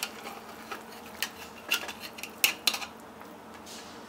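A spoon scraping and clinking against the inside of a pressure cooker as cooked biryani rice is turned over from the sides, with a few scattered sharp clinks.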